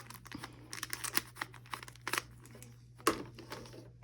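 Plastic Rubik's cubes being twisted quickly to scramble them: a fast, irregular run of clicking layer turns that thins out after about two seconds, with a louder knock about three seconds in.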